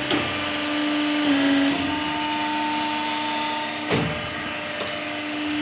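Steady hum of a plastic injection moulding machine's hydraulic pump motor running, its pitch dipping briefly a little over a second in. A sharp knock sounds about four seconds in.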